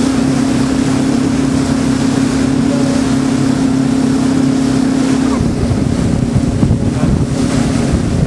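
Cruise boat's engine humming steadily over a rush of wind and sea. About five seconds in the steady hum drops away and wind buffeting the microphone takes over.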